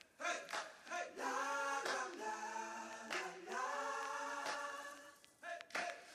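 Background music: voices singing long held chords, like a choir, with short breaks between phrases.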